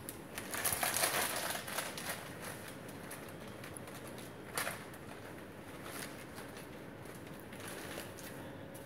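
Rustling and handling noise close to the microphone for about a second and a half, then a single short knock about four and a half seconds in, over low room noise.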